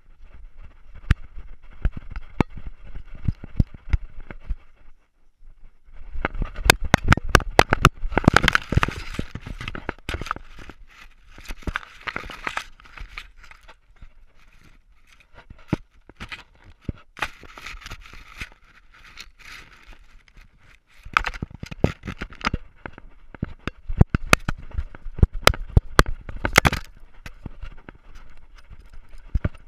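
Irregular clicks, knocks and scraping rustles from a collar-mounted GoPro camera and its case as the dog moves, with fur brushing against the case. The noise comes in spells, with quieter pauses in between.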